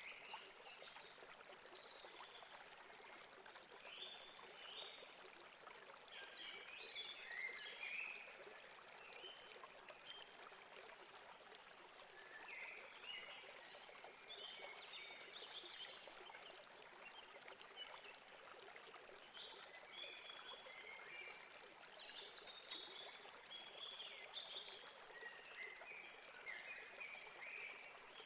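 River water running steadily, with small birds chirping in short runs every few seconds.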